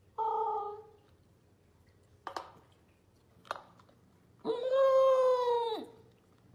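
Corgi puppy howling: a short high howl just after the start, then a longer, louder howl of about a second and a half whose pitch sinks slowly and drops off at the end. Two sharp clicks fall between the howls.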